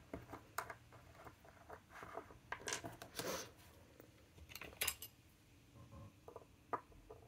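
Small screw cap being twisted off an ink bottle and set down on a desk: a quiet run of little clicks and taps, with a few louder brief scrapes and clicks around the middle.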